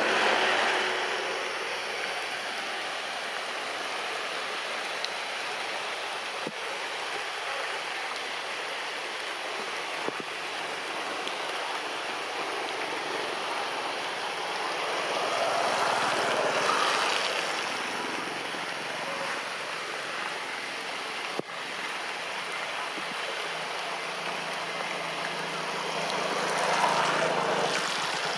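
Steady hiss of rain falling on tree foliage, swelling louder three times and broken by a few faint clicks.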